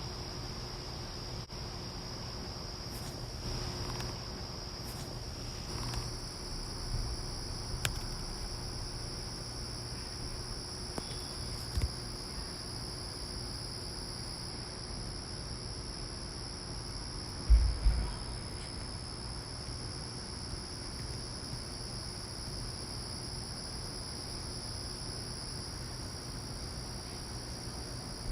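A steady, high-pitched insect chorus trilling without a break, with two short low thumps about two-thirds of the way through.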